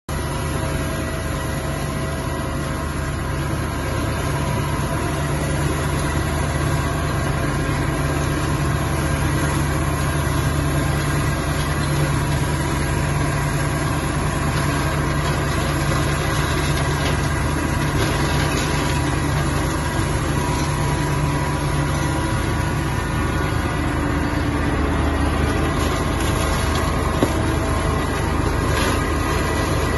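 Tractor engine running steadily while a PTO-driven AGF Garto mulcher shreds dry grass and weeds.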